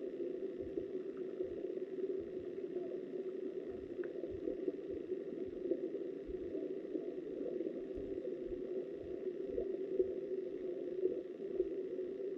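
Flowing river water recorded underwater: a steady, muffled rushing, with frequent irregular low thuds.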